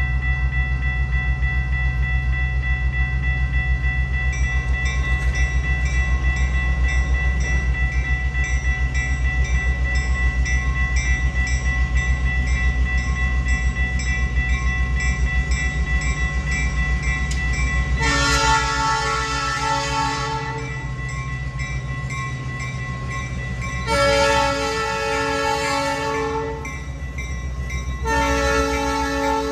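Railroad crossing signal bell ringing steadily over the low rumble of an approaching Ventura County Railroad diesel locomotive. The locomotive sounds its horn three times in the last third: a long blast about 18 seconds in, a second about 24 seconds in, and a third near the end.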